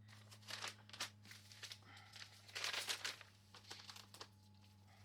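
Plastic packaging crinkling and rustling in irregular bursts as packs of ground turkey are handled, busiest about halfway through, over a steady low hum.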